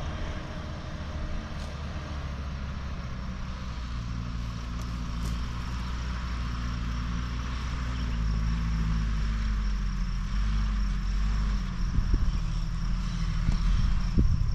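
Off-road truck engine running at low revs, its pitch shifting slightly as it works, getting louder about eight seconds in, with a few short knocks near the end.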